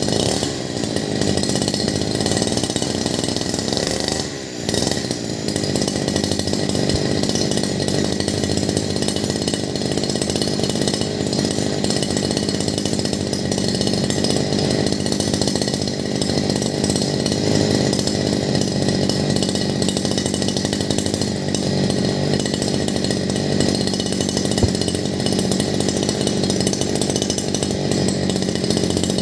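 Sun-Max 52cc two-stroke brush cutter engine running steadily at low speed with no load, a new engine being run in. Its sound dips briefly about four and a half seconds in, then carries on evenly.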